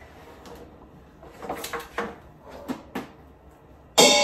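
Cookware being shifted in a kitchen cabinet: a few scattered knocks and clatters, then near the end a sudden loud metallic clang that rings on and slowly dies away, metal pots or lids striking each other.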